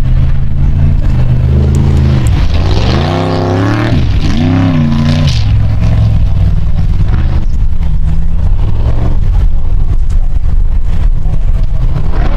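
Formula offroad buggy's engine running hard. Around three to five seconds in its pitch swings sharply up and down twice as it is revved, then it settles into a loud, steady drive.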